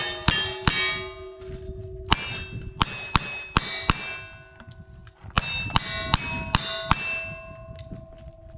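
About a dozen rapid gunshots at steel targets. Each hit leaves the struck plate ringing with a metallic clang, the shots falling mostly about half a second apart, with a short lull a little after the middle.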